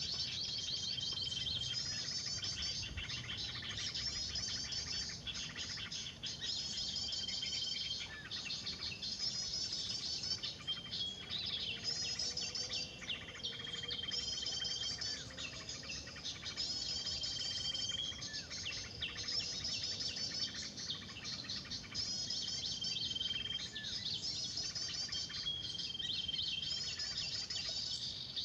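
Lure recording of agitated small-bird calls played through a speaker to draw birds to lime sticks: clusters of rapid high chirps repeating about every two seconds, with a short steady whistle between many of them.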